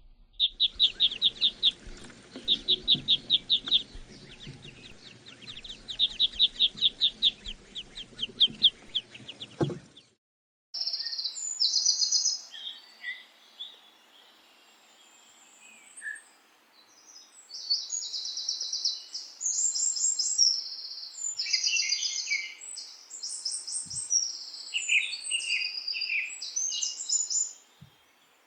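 Small birds chirping. For about ten seconds the calls come in quick, high runs, then a short break, then many birds chirp at once in a busy overlapping chatter.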